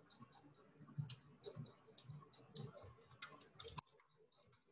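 Faint typing on a computer keyboard: irregular key clicks, several a second, that stop near the end.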